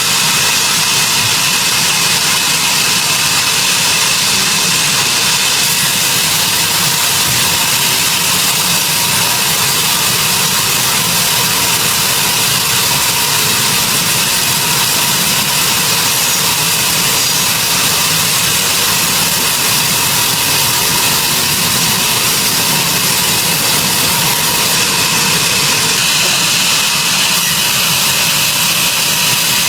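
Sawmill machinery running with a loud, steady, unbroken noise.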